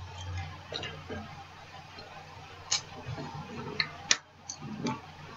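Faint handling noise with three light clicks in the second half, from a squeeze bottle of mustard being handled and opened.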